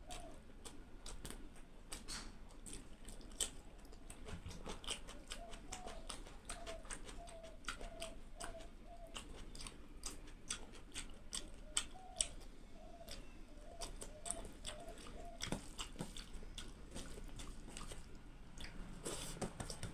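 Close-miked chewing of rice and curry, with many wet mouth clicks, and fingers squishing rice into curry on a steel plate.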